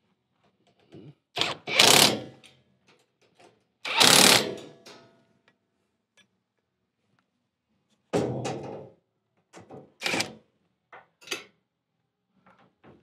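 Bolts being done up by hand inside the vehicle: short runs of ratchet clicks, broken by a few loud knocks and clunks of tool and metal, the loudest about two and four seconds in.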